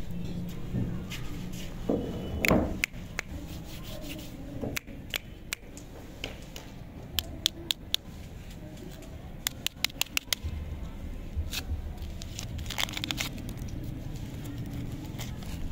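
Plastic lollipop wrapper being peeled and torn open by hand, crinkling in scattered sharp crackles. There is a louder rustle about two seconds in and further bursts of crackling later on.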